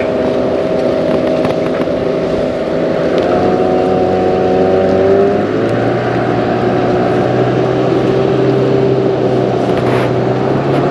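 Motorboat engine running steadily, its pitch stepping up about three seconds in and rising again about five and a half seconds in.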